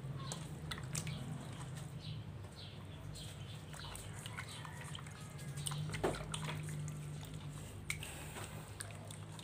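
Raw pork chops and chicken handled in marinade, giving scattered wet clicks and squelches over a steady low hum, with one louder knock about six seconds in.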